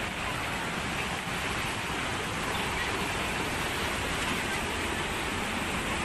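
A torrent of muddy floodwater rushing and churning past in a steady wash of noise.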